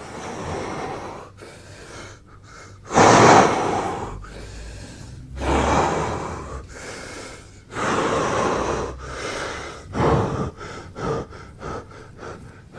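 Strained breathing and gasps of a person exerting themselves lifting a barbell: several long, forceful breaths, the loudest about three seconds in, then a run of short, quick pants near the end.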